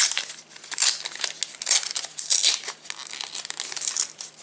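Foil wrapper of a Panini Adrenalyn XL trading-card pack crinkling and tearing as it is opened by hand, in irregular crackling bursts.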